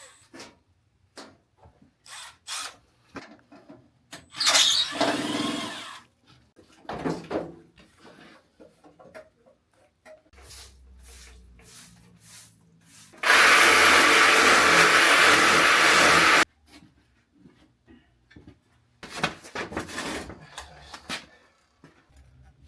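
A power tool runs steadily for about three seconds past the middle and cuts off, amid clanks, knocks and scrapes of tools working on steam boiler piping, with a brief squeal early on.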